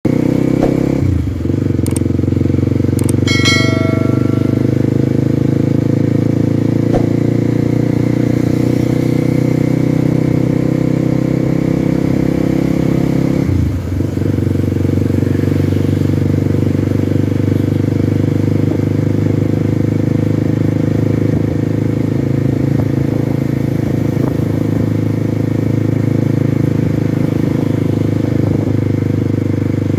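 Dirt bike engine running steadily under way, with two short breaks in the engine note, about a second in and near the halfway mark. A brief high beep sounds about three seconds in.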